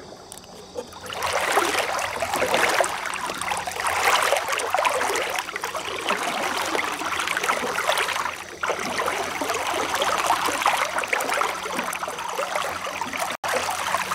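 Lake water rushing and splashing around a hand trailed in it over the side of a moving boat. It starts about a second in, stays loud and churning, and breaks off for an instant near the end.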